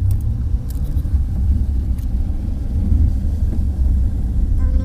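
Steady low rumble of a moving car heard from inside the cabin: engine and road noise, with a few faint clicks.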